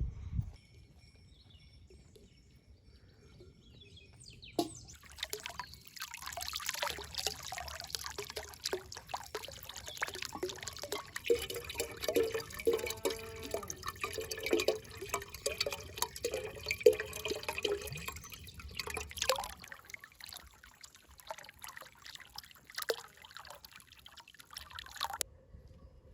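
Water splashing and trickling, with many small clicks and knocks. It starts about four and a half seconds in and cuts off abruptly near the end.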